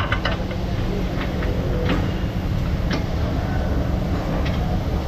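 Steady low rumble of a car repair shop, with a handful of light metallic clicks and taps as the rear wheel hub and suspension parts are handled.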